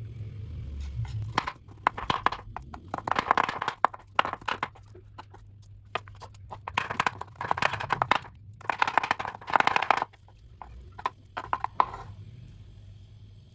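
Raw prawns being handled in a kitchen, in repeated short bursts of wet crunching and rustling about a second long, with short pauses between.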